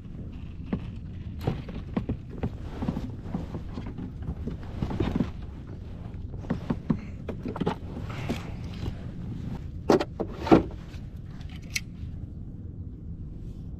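Irregular knocks, clicks and rustles of fishing gear being handled on a plastic sit-on-top kayak, with two louder knocks about ten seconds in, over a steady low rumble.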